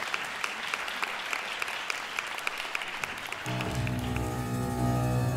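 Audience applause with single claps standing out, dying away; about three and a half seconds in, a Steinway grand piano starts playing, low bass notes ringing on under the opening chords.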